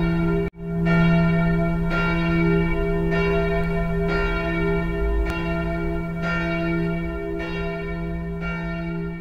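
Church bells pealing, struck about once a second, each stroke ringing on under the next. The sound breaks off for a moment about half a second in, then rings on.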